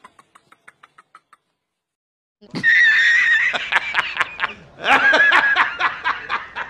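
Quick, fading laughter in the first second or so, then after a short gap loud, hearty laughing in two long bouts.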